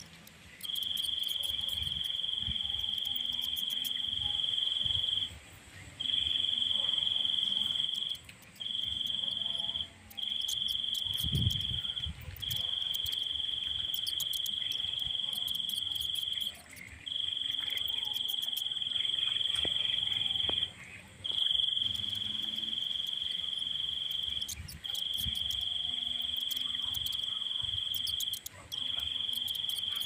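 A high-pitched insect trill, one steady tone held in long stretches of one to four seconds, breaking off briefly between them about nine times.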